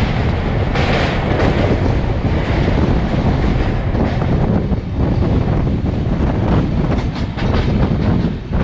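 Humsafar Express passenger train running: a loud, steady rumble of wheels on the rails, with a run of clicks over rail joints in the second half.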